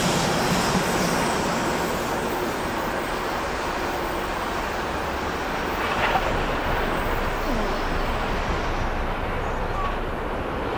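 German class 52 2-10-0 steam locomotive 52 7596 hauling a passenger train away at full steam: a steady rumble and clatter of the engine and coaches on the rails, thinning out near the end as the train moves off.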